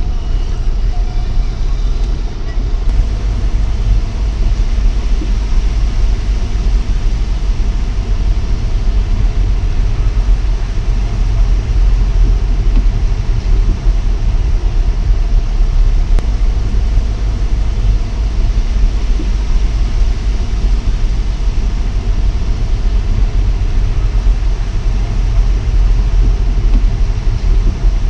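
Sea wind buffeting the camera's microphone: a loud, steady rumble with a hissing haze that swells and dips.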